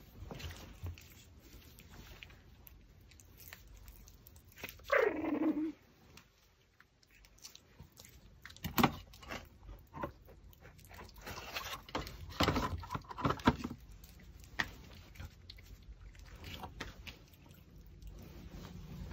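A Pomeranian gives one falling whine about five seconds in, the loudest sound here. After it come scattered sharp clicks and short scraping noises, and near the end the dog is gnawing a raw pork backbone.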